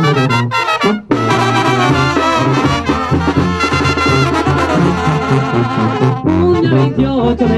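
Mexican banda brass band playing: trumpets over a tuba bass line and drums, with a short break about a second in.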